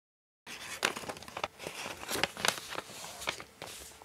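Origami paper being folded and creased by hand, starting about half a second in: irregular light crinkles and rustles with crisp little clicks as the fingers flip the flap over and press the fold flat.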